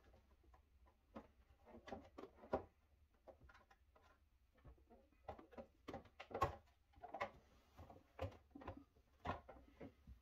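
Samsung refrigerator's plastic upper hinge cover being pried up by hand: a scattered run of faint clicks and taps as the cover's clips come loose and fingers knock on the plastic.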